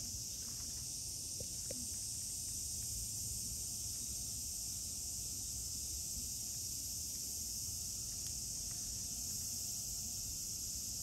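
Steady insect chorus, a continuous high buzz, over a low outdoor rumble, with a few faint ticks about a second and a half in.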